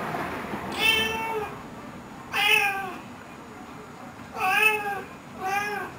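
A domestic cat meowing four times from inside a plastic pet carrier, close to a handheld microphone; each meow lasts about half a second and rises then falls in pitch.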